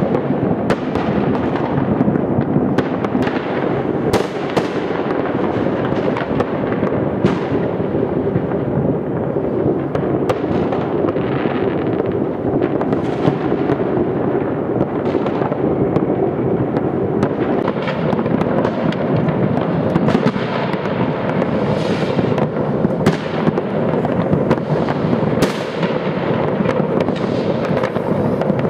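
Many fireworks and firecrackers going off at once across a city: a continuous din of overlapping distant booms and crackles, with sharper bangs standing out irregularly every second or so.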